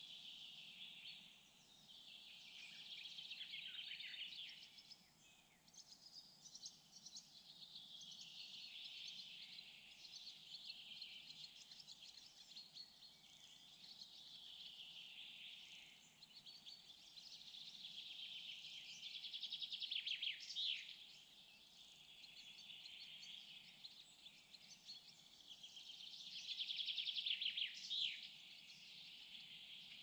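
Songbirds singing at a distance in repeated phrases a few seconds long, some ending in fast trills, with a faint low steady hum beneath.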